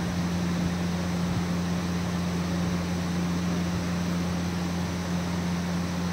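An electric fan runs steadily, giving a low even hum with a hiss of moving air.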